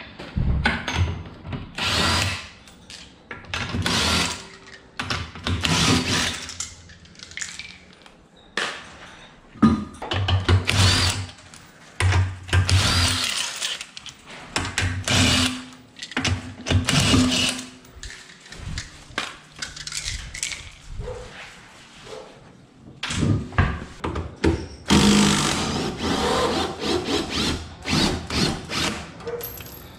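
Cordless impact wrench on a socket and extension, run in repeated bursts of a second or two as it loosens a car wheel's lug nuts one after another.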